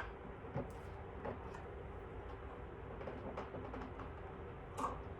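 A few faint clicks and knocks of hands working the parts of a Bauer belt sander that is switched off, over a steady low hum.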